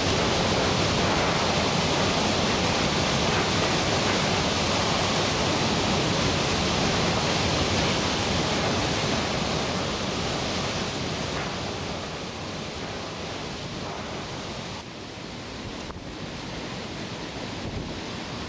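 Hurricane wind and rain making a loud, steady rush of noise that eases somewhat about ten seconds in.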